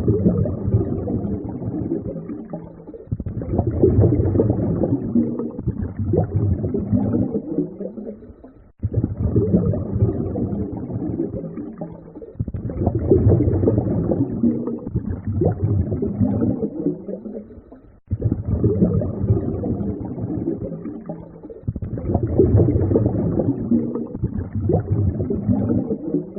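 A low, rough rumbling noise played as a loop, repeating about every nine seconds: each pass starts abruptly, swells and fades before being cut off and restarting.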